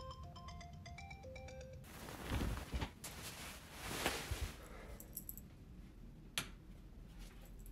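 An iPhone alarm plays a repeating melody of short beeping notes and cuts off suddenly about two seconds in. Rustling and shuffling movement follows, then a single sharp click from a wall rocker light switch near the end.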